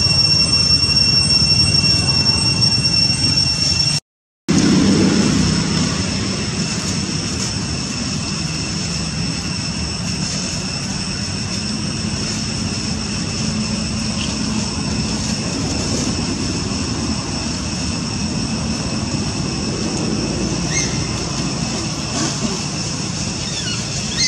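Steady outdoor background noise, a low rumbling hiss, with a steady high whine over the first four seconds. The sound cuts out completely for about half a second around four seconds in, then the rumbling noise carries on, with a few faint short chirps near the end.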